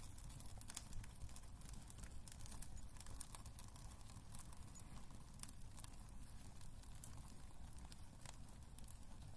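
Wood fire crackling in a fireplace: irregular sharp pops and snaps over a low rumble.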